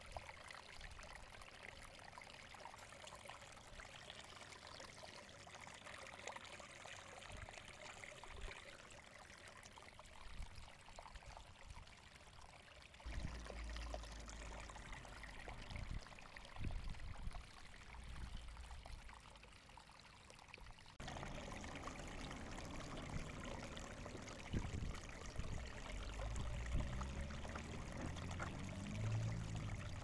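Water running and splashing down a rock waterfall: a steady rushing trickle. A little before halfway, low rumbles and scattered thumps join it.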